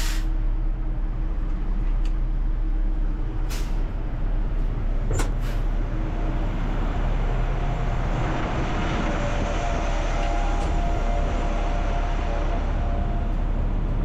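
Grain truck's engine idling steadily, with a short burst of air right at the start as the air parking brake is set. A few sharp knocks follow a few seconds in, and from about halfway a steadier hiss with a faint high whine joins the engine.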